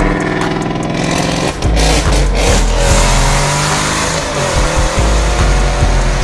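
Ford Mustang GT's 5.0-litre V8 revving hard and accelerating, with a brief break in the sound about one and a half seconds in, like a gear change, then pulling again with the pitch sliding up and down.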